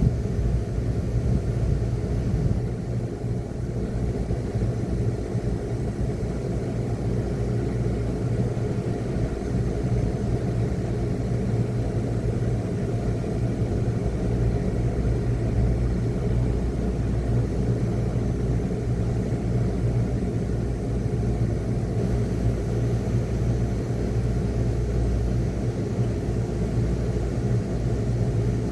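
Midea 5,000 BTU window air conditioner running steadily: a low hum with fan noise over it.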